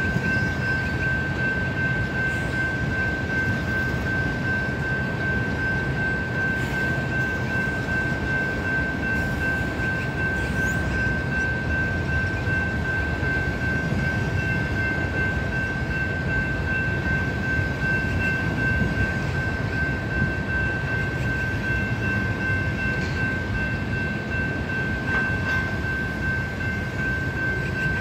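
Freight train's boxcars and tank cars rolling steadily past a grade crossing: a continuous low rumble of wheels on rail. A steady high tone sounds over it throughout.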